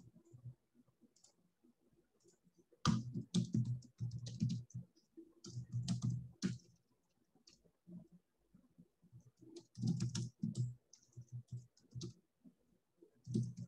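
Computer keyboard being typed on in several short bursts of quick keystrokes.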